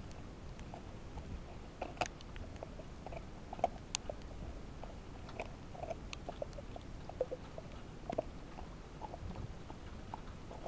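A dog gnawing and chewing a raw meaty bone: irregular crunches and sharp clicks of teeth on bone, with a few louder cracks about two, four and eight seconds in.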